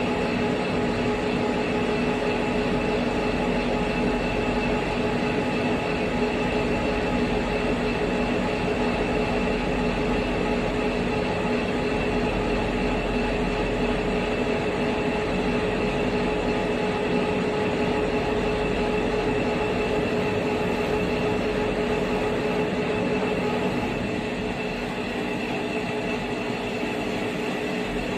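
Three-side CNC milling machine running, its spindles cutting a valve body: a steady mechanical noise carrying several held tones, easing slightly about 24 seconds in.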